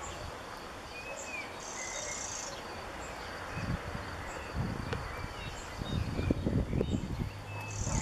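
Birds chirping in short high whistled notes, with a brief high buzzing trill about two seconds in. Low buffeting rumbles on the microphone come in during the second half.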